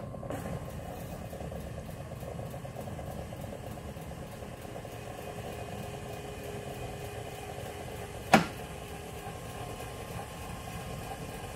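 Silent Partner smart unit's small electric motor running steadily as the unit adjusts on its own, the fault the owner is trying to trace. One sharp click about eight seconds in.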